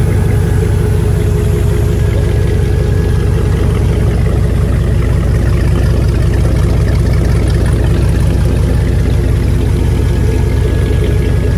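Freshly overhauled Mercruiser 8.1-litre (496 cubic inch) big-block V8 marine engine idling steadily.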